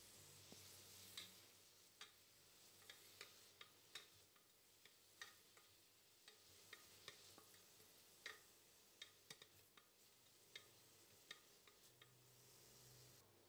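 Wooden spatula stirring sliced onions in an aluminium pressure cooker: irregular light knocks and scrapes against the pot, one or two a second, over a faint frying hiss.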